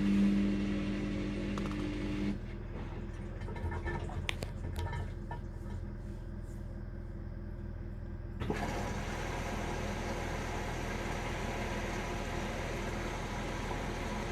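Samsung washing machine on a bedding cycle: a steady motor hum cuts off about two seconds in, leaving a few clicks and soft low thuds. Past the middle a steady rushing hiss starts suddenly and keeps on.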